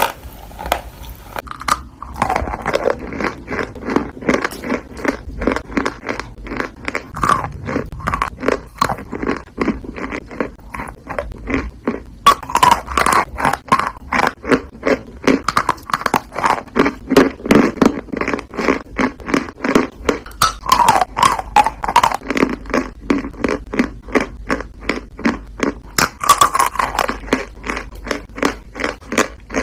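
Chalk being crunched and chewed close to the microphone: a steady run of crisp crunches, a few each second.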